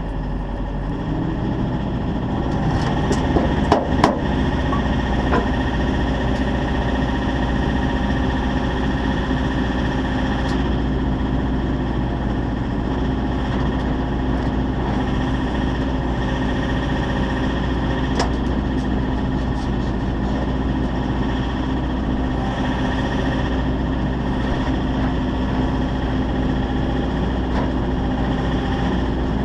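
Engine idling steadily, with a few sharp clicks about three to four seconds in.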